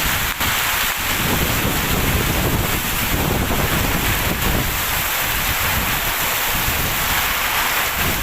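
Heavy rain pouring steadily with strong wind, the wind buffeting the microphone as a low rumble under the hiss of the rain.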